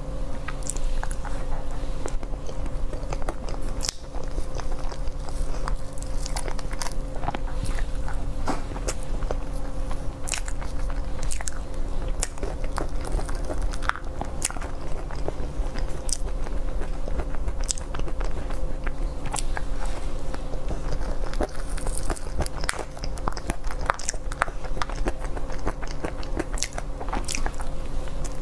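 Close-miked eating sounds: chewing and biting with many irregular mouth clicks, as a cream sponge cake is spooned from a plastic cup and eaten. A steady low hum runs underneath.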